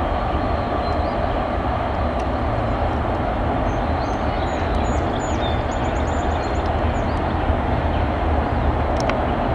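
Train rolling past on the CSX Boston Line: a steady, loud rumble of wheels and cars on the rails, with no change in level.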